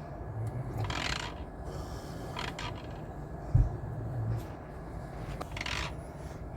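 A person snoring: rasping breaths every couple of seconds with a low rumble between them. One short, loud thump about three and a half seconds in.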